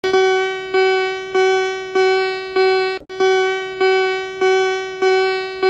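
Emergency-broadcast attention signal: a single electronic note struck over and over, about one and a half times a second, each strike fading before the next. It cuts in suddenly out of silence.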